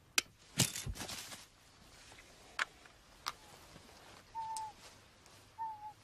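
A radio-fired eagle trap springing: a sharp click, then a loud rush with a low thud about half a second later. A few isolated clicks follow, and near the end come two short, slightly falling bird calls.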